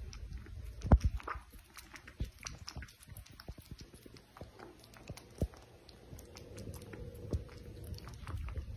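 Kitten lapping water from a plastic bowl: a run of small, irregular clicks, a few of them louder.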